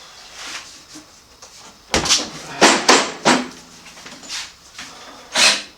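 A few short clunks and scrapes as motorcycle rear-wheel parts are handled and worked into place: a cluster of four between about two and three and a half seconds in, and one more near the end.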